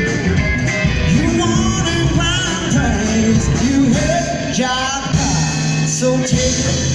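Live rock band playing: electric guitar, bass guitar and drums, with a male lead vocal.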